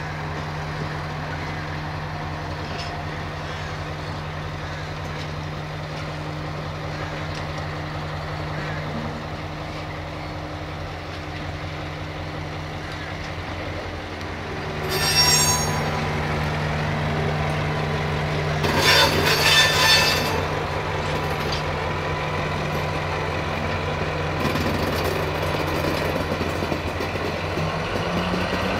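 Diesel-hydraulic shunting locomotive running steadily while it moves a cut of tank wagons at low speed. The wagons' steel wheels give two short, high metallic squeals, about halfway through and again a few seconds later.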